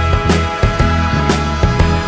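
Background music with a steady beat: sustained bass and held notes, with drum hits about twice a second.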